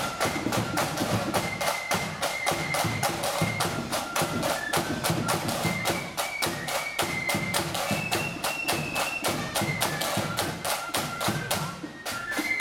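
Marching flute band playing: many side drums beat fast, dense strokes under a high flute melody. There is a short break near the end.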